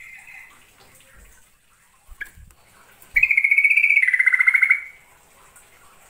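Yellow-vented bulbul (trucukan) calling. A short chirp comes about two seconds in, then a loud, rapid chattering trill lasting about a second and a half that steps slightly down in pitch halfway through.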